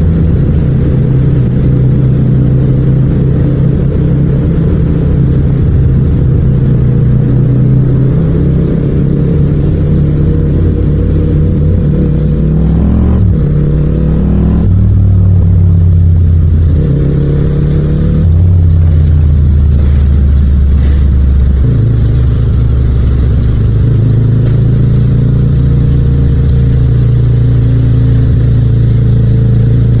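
Yamaha MT-07's 689 cc parallel-twin engine running under way. Its note holds steady, then rises and falls a few times about halfway through as the revs change.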